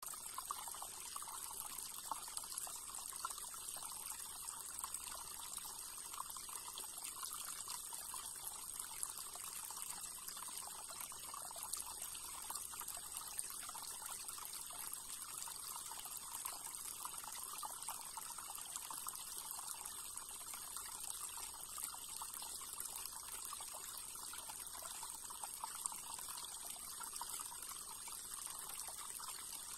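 Shallow stream water trickling steadily over stones.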